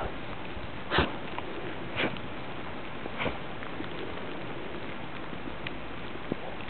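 A dog barking three times, short and sharp, about a second apart, over a steady hiss.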